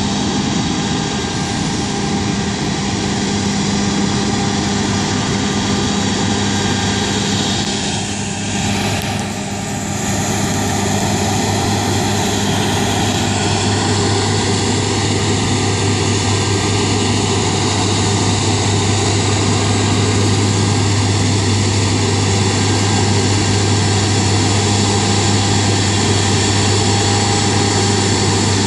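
John Deere S680i combine harvester running steadily while harvesting wheat: a constant engine drone with a strong low hum, briefly a little quieter about eight seconds in.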